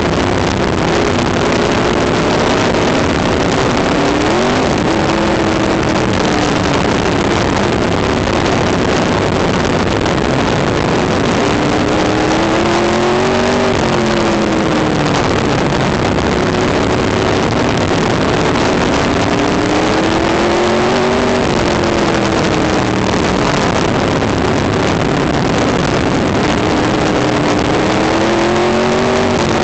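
Onboard sound of an open-wheel race car's engine at racing speed, its pitch climbing and then dropping about every eight seconds as the car goes around the oval, with a steady rushing noise over it.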